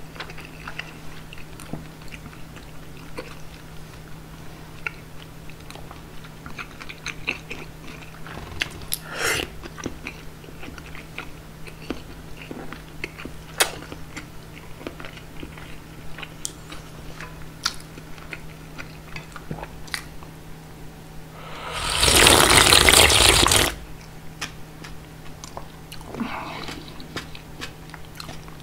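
Close-miked eating of cold bean-soup noodles: mouth chewing with small wet clicks and crunches, then one loud slurp lasting about two seconds near the end.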